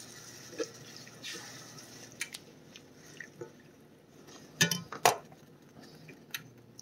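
Metal slotted spatula stirring milk gravy in a cast iron skillet: soft sloshing of liquid with scattered clinks of metal against the pan, two louder ones about two-thirds of the way through.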